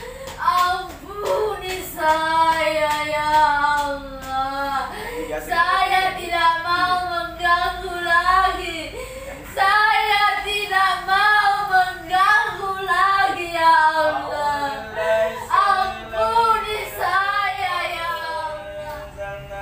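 A woman singing in a high, wavering voice, in long drawn-out phrases with short breaths between them.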